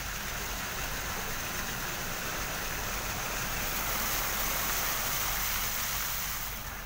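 A car's tyres pushing through shallow floodwater: a steady rushing swish of spray and wash that grows a little louder, then dies down near the end.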